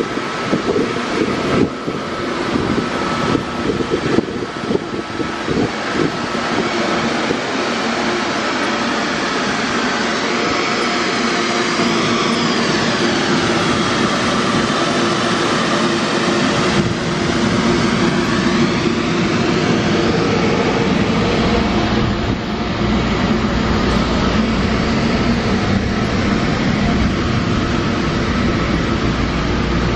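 Wohlenberg B800B CNC deep-hole boring lathe running under power: a loud, steady mechanical drone from its motors and drives. A deeper hum comes in about halfway through.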